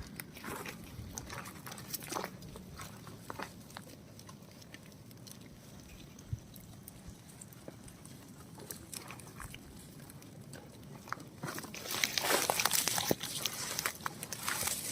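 An animal chewing and crunching feed in scattered crisp bites, with a louder, denser stretch of crunching and scuffling near the end.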